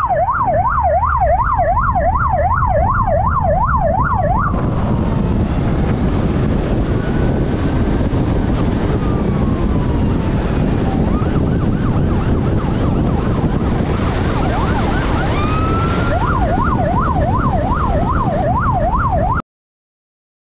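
Police motorcycle siren in a fast yelp over wind rush and engine noise from the moving bike. The siren stops about four seconds in, leaving the wind and engine. Near the end it comes back as a rising wail that breaks into the yelp again, before the sound cuts out abruptly.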